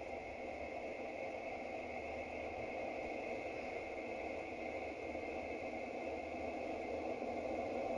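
Steady hissing, rumbling drone of a sonified space recording, the kind of audio made from spacecraft radio and plasma-wave data of a planet or moon. It has a low noisy band with a thinner hiss above it, and it slowly grows louder.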